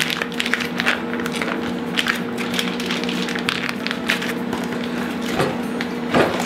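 Plastic bags of curing bacon crinkling and rustling as they are handled and turned over, with a louder rustle near the end. A steady hum from the walk-in refrigerator's cooling unit runs underneath.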